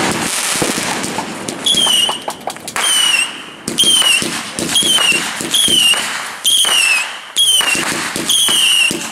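Consumer fireworks going off: crackling pops from a burst, then a run of about nine shrill whistling shots, each a short, slightly falling whistle starting with a crack, about one and a half a second.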